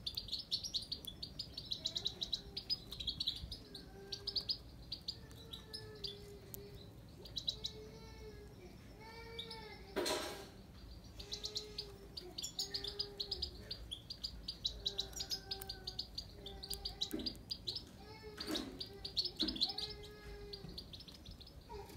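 Himalayan (grey-crowned) goldfinch singing: fast twittering runs of high notes in several bursts, with a lower, slower note repeating underneath. A sharp noise comes about ten seconds in.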